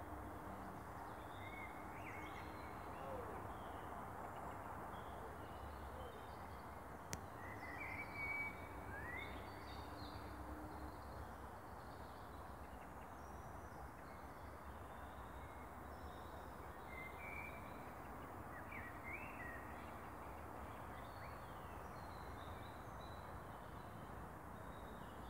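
Birds chirping now and then in short calls and little pitch glides, over a faint, steady outdoor background noise.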